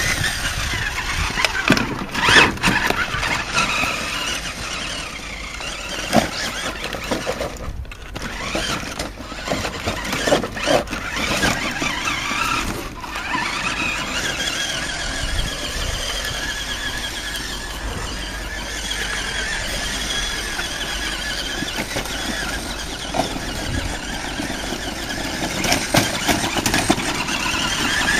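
Radio-controlled Hummer H2 model truck's motor and gears whining, the pitch rising and falling as it is driven, with a few short knocks along the way.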